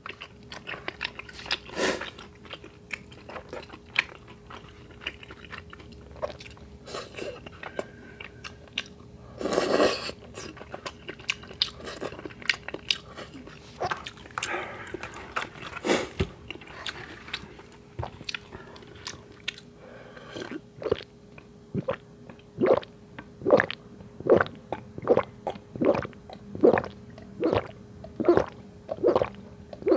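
Close-miked eating: biting and chewing on sauce-soaked fried food, with small clicks of wooden chopsticks. In the last third, a run of steady gulps, about two a second, as a drink is swallowed from a carton.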